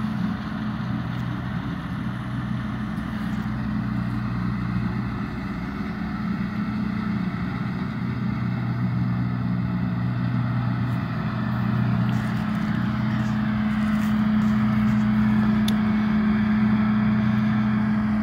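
Engine running steadily with a low hum that grows gradually louder.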